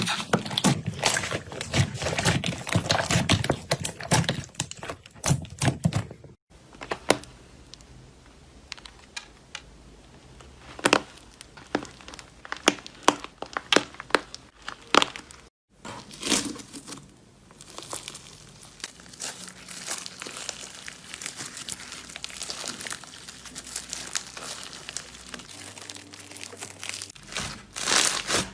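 Slime being squeezed and stretched by hand, giving a dense run of crackling clicks and small pops. It is loudest for the first six seconds and stops dead for a moment twice, about six and fifteen seconds in.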